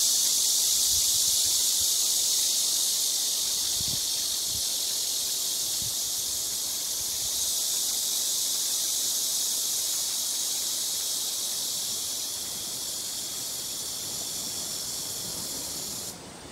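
A chorus of cicadas buzzing as one steady high-pitched drone, fading a little and then cutting off suddenly near the end.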